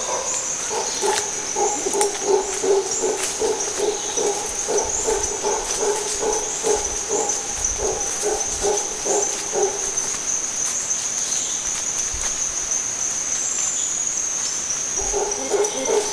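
A troop of howler monkeys calling: rhythmic, pulsed, deep grunting calls that stop about ten seconds in and start again near the end, over a steady high insect buzz.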